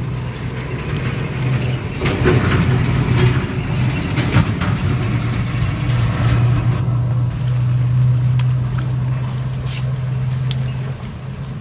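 An engine idling: a steady low hum at one pitch, with a louder patch of rustling noise from about two to five seconds in.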